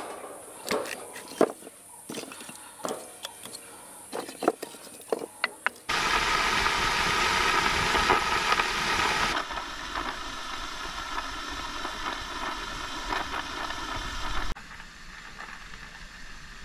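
A few sharp knocks and clatters, then, about six seconds in, the steady hiss of a gas torch burning on a pile of charcoal briquettes to light them. The hiss drops somewhat partway and cuts off suddenly about two seconds before the end.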